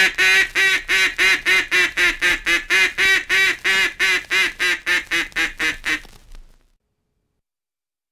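Duck call blown in a long, even string of mallard-style quacks, about three a second, that weakens and stops about six and a half seconds in. Heard from an old 78 rpm record transfer.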